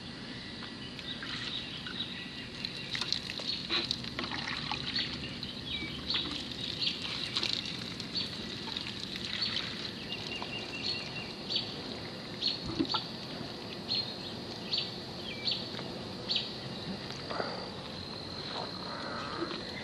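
Birds chirping in short, repeated calls, over a steady high insect drone, with faint splashes of water poured from a plastic container onto plants.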